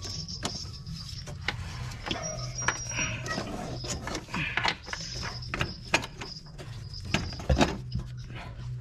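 Irregular clicks, taps and knocks of gloved hands fitting parts among the fuel lines and hoses under a car, with a louder knock near the end, over a steady low hum.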